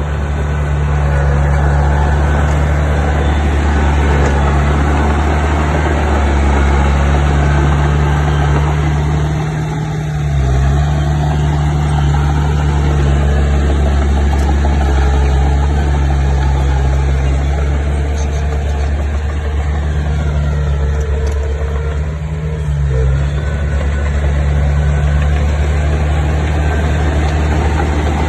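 Diesel bulldozer engine running steadily under load, its note dipping briefly twice, about ten seconds in and again a little past twenty seconds.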